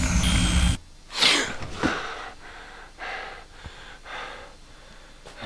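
A loud, dense sound with a heavy low end stops abruptly under a second in. A person gives one sharp gasp, then breathes hard in short, ragged breaths.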